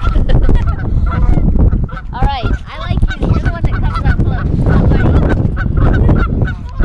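Canada geese honking over and over, a rapid run of short calls with one louder, bending honk about two and a half seconds in.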